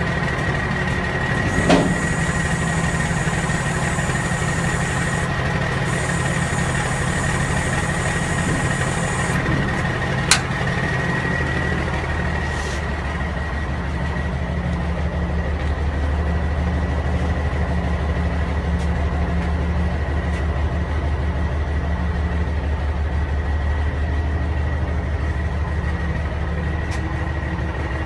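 Truck engine idling steadily with a thin high whine over it. Its low hum grows stronger about eleven seconds in. Two short clicks come near the start and about ten seconds in.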